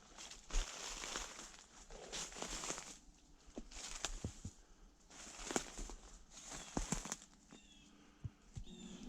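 Slow footsteps crunching through frozen dry leaves on the forest floor, a loose string of noisy steps with short pauses between them. The crunch is loud because the leaf litter is cold and crisp.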